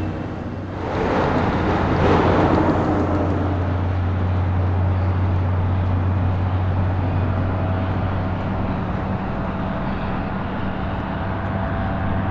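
Heavy-haul truck diesel engines droning steadily at a low pitch, with a swell of tyre and road noise between one and three seconds in as the heavy-haul trailer rolls close past.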